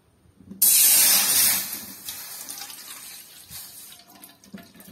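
Water poured from a steel tumbler into an empty aluminium kadai, splashing loudly as it starts about half a second in, then running on quieter.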